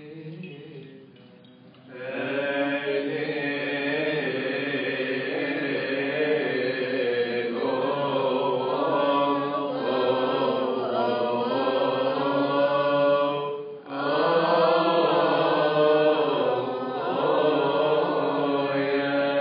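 Coptic Orthodox liturgical hymn chanted, starting about two seconds in, with a short break about two-thirds of the way through.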